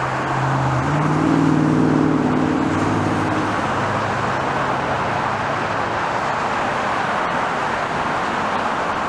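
Steady rushing engine noise of a passing vehicle, its low hum dropping in pitch about three seconds in.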